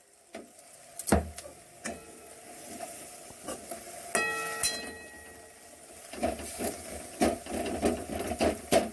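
Steel ladle stirring moringa leaves and dal badi in a non-stick kadai, with scattered taps and scrapes of the ladle against the pan. One clink rings briefly about four seconds in, and the scraping and tapping grow busier near the end.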